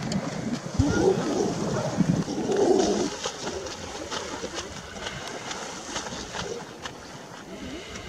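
Grey seals calling with low, rough moaning growls, loudest in the first three seconds and then quieter.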